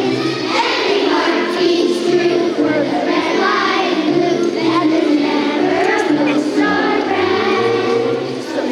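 A choir of second-grade children singing a patriotic song together over a steady instrumental accompaniment.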